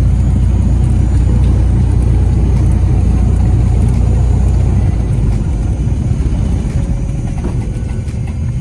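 Piston engine and propeller of a single-engine light aircraft running at taxi power, heard inside the cockpit as a loud, steady low rumble that eases slightly about five seconds in.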